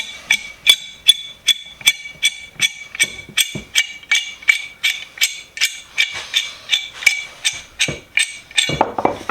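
Repeated hammer strikes on a steel Craftsman pipe wrench as it is taken apart, about two and a half sharp metallic taps a second, each ringing at the same pitch.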